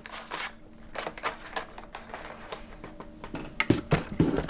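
Carded Hot Wheels die-cast cars being handled: irregular light clicks and rustles of plastic blister packs and cardboard backing cards, busier and louder near the end.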